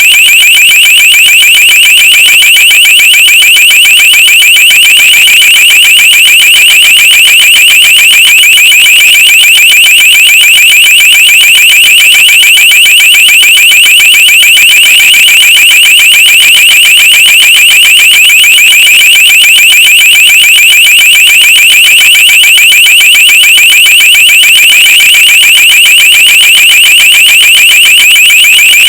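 Electronic alarm sounding without a break: a loud, shrill tone pulsing rapidly and evenly, in the manner of a vehicle alarm.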